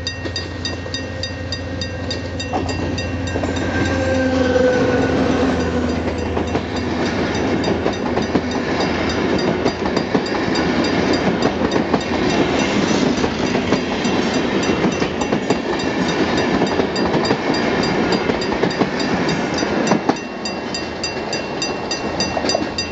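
A passing train: first a low engine hum as it approaches, with a falling tone as the front goes by about 4–5 seconds in. Then a loud, steady rumble and rattle of the coaches' wheels on the rails, easing after a knock near the end. A level-crossing warning signal rings rapidly throughout.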